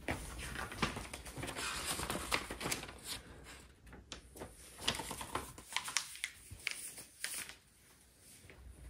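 Parts and wrapping of a kids' ride-on car being handled: rustling and crinkling for the first few seconds, then scattered light clicks and knocks, dying down near the end.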